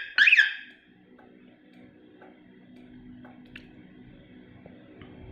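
Car alarm siren sounding its find-car chirps: two last fast, rising-and-falling chirps that stop within the first second. After that only a faint steady hum and a few light ticks remain.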